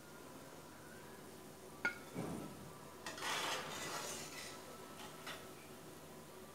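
A perforated metal skimmer working in a kadhai of hot frying oil: a sharp clink of the skimmer against the pan a little under two seconds in, then about a second and a half of scraping with faint sizzling as fried balls are scooped up, and a light tap near the end.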